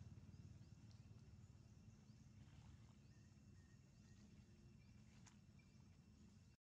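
Near silence: faint outdoor ambience with a steady low rumble and faint high steady tones, and a faint click about five seconds in.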